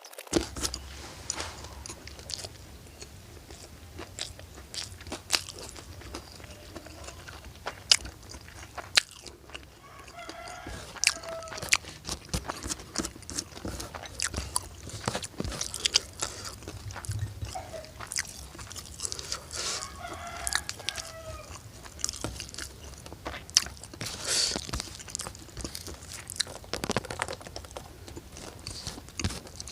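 Close-up crunching, biting and chewing of crisp food, with many sharp crunches. A rooster crows twice in the background, about ten seconds in and again about twenty seconds in.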